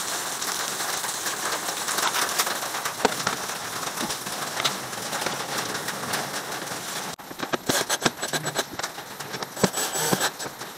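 A steady hiss-like noise with scattered clicks, then an abrupt cut about seven seconds in. After the cut, a cordless drill runs in short bursts with clicks and knocks, driving screws into the plastic engine undertray of a car.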